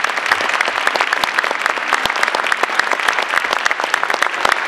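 Audience applauding: many hands clapping at once in a steady, dense patter at the end of a lecture.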